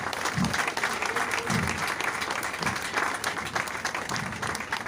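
An audience clapping steadily throughout, a dense patter of many hands.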